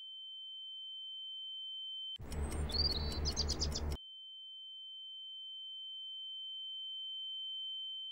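A steady, high-pitched electronic sine tone swelling slowly louder. About two seconds in it is cut off by a short, louder stretch of rapid ticking, about five ticks a second, with low pulsing thuds and high chirps. The tone then comes back and swells again.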